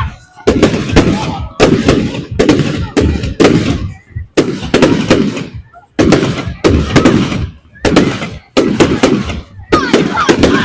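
Fireworks shells bursting in rapid volleys of loud bangs, several a second, each trailing off in an echo, with short pauses about four and six seconds in.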